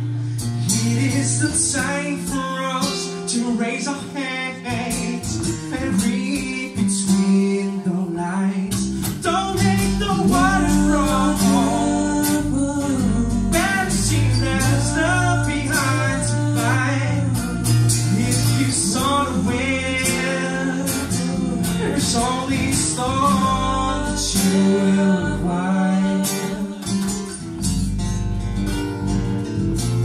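Live acoustic band music: acoustic guitars strummed while a male and a female voice sing together.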